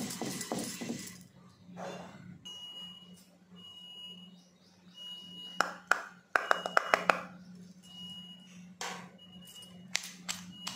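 Wooden pestle pounding roasted seeds in a stone mortar, with rhythmic knocks that stop about a second in. Then a repeating high electronic beep sounds about once a second over a low steady hum, and about halfway through there is a burst of clattering as fried okra pieces are tipped from a steel bowl into the stone mortar, followed by a few single clicks.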